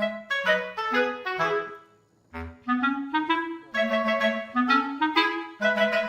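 Background music: a bright melody of short notes, each starting sharply and fading, with a brief pause about two seconds in before the tune carries on.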